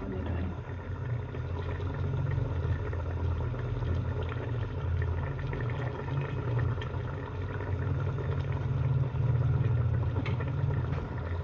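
A pot of potato-and-egg curry simmering on the stove: a steady low rumble with faint bubbling ticks over it.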